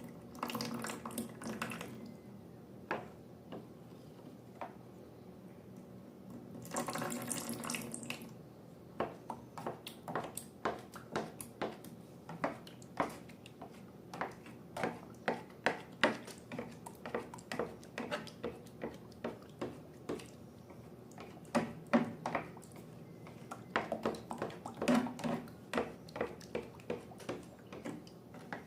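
Liquid poured into a container twice, in short pours, then slime being worked by hand or stirred, with many short, wet clicks and squelches.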